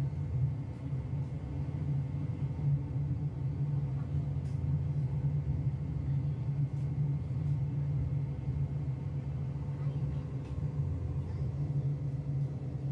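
Tejas Rajdhani express train running, heard from inside the coach: a steady low rumble with a faint constant hum over it.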